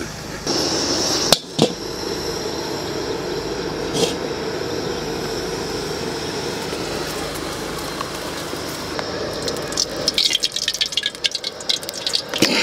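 Liquid poured into a large aluminium cooking pan, a steady pouring hiss that turns to rapid crackling near the end.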